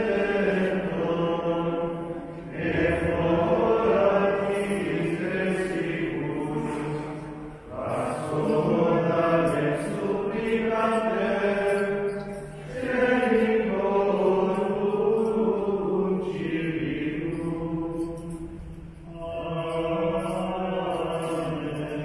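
Liturgical chant, sung in sustained phrases of a few seconds each with short pauses between them.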